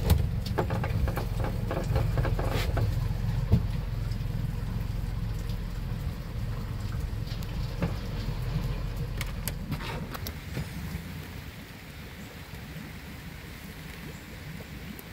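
Rain falling on a houseboat's roof and windows, over a steady low rumble that fades about two-thirds of the way through. Scattered light clicks and knocks come in the first few seconds and again later.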